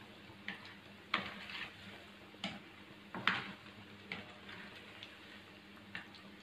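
Metal slotted spoon clinking and tapping against the wok at irregular moments, about once a second, while chicken bites are stirred in hot oil, over a faint frying sizzle.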